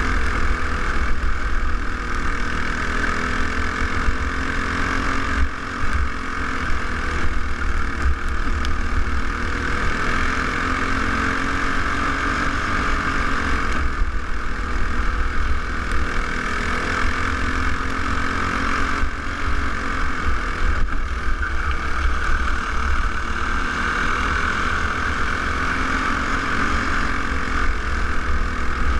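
A racing kart's single-cylinder four-stroke clone engine running hard, heard from onboard. Its note dips and climbs again every seven seconds or so, with a heavy wind rumble on the microphone.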